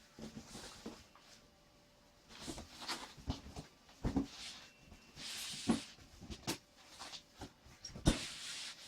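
Packaging being handled while things are lifted out of a cardboard box: cardboard and plastic rustling in short bursts, with scattered knocks and thuds.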